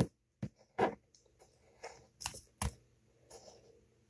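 Pencil point scratching and tapping on a sticky note as a small circle is drawn, in about seven short, separate strokes.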